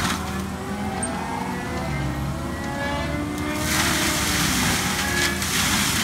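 Skid steer's diesel engine and Gyro-Trac 500 HF forestry mulching head running under load, with engine and drum tones shifting in pitch. The loud hissing of the cutter teeth shredding palm and brush eases for about the first three and a half seconds, then comes back strongly.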